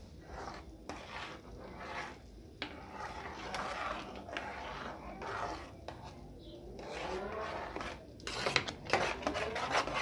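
Metal spoon stirring cornmeal into hot water in a metal pot as it thickens into polenta: repeated scraping and rubbing strokes, louder in the last two seconds with sharp clicks of the spoon against the pot.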